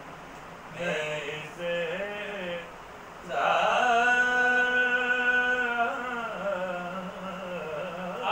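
A man's voice singing unaccompanied in a slow chanting style, with two short phrases about a second in, then a long, steady held note from about three seconds in that tails off into wavering melisma.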